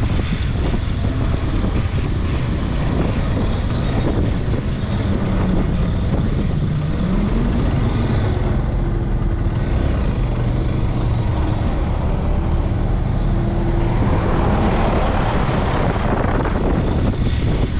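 Motorcycle engine running steadily while riding a dirt track. About halfway through, it passes close by a working wheel loader's diesel engine. A rushing noise grows near the end.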